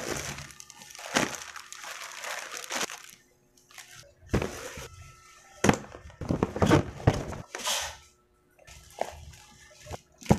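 Plastic packaging and gift bags crinkling and rustling as they are handled, in irregular bursts with two short pauses.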